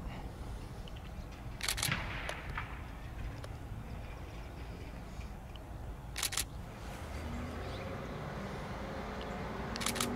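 Steady low outdoor rumble, with three sharp double clicks of a camera shutter about two, six and ten seconds in.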